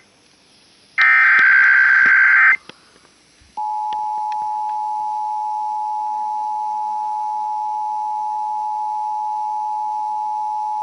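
A burst of Emergency Alert System SAME header data, a harsh buzzing screech lasting about a second and a half. About three and a half seconds in, the steady two-tone EAS attention signal starts and holds. Together they announce an EAS required weekly test.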